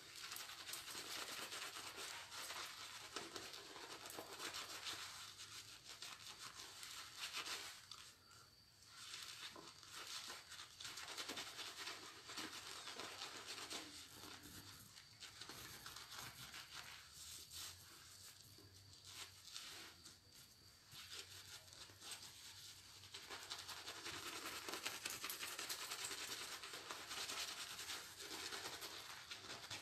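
Shaving brush face-lathering: wet bristles scrubbing shaving-soap lather against the face, a faint, steady scratchy rubbing. It pauses briefly about 8 seconds in and again about 21 seconds in, and grows a little louder near the end.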